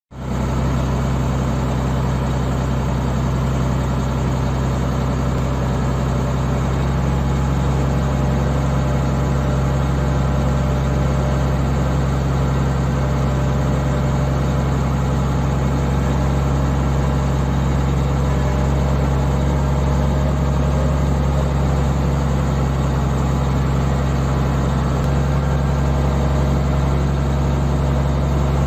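Volvo L180 wheel loader's diesel engine running steadily at a low, even speed, heard close up from on the machine.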